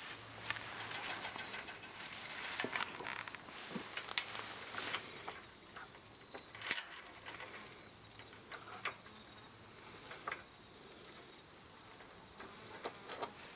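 A steady, high, hissing insect chorus. A few sharp clicks or snaps stand out over it, the loudest about four seconds in and again near seven seconds.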